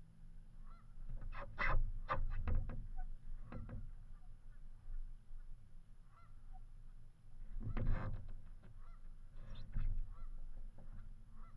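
Geese honking in short calls every few seconds. Two louder spells of water splashing come from the kayak and wing paddle, a second or two in and again about two-thirds of the way through.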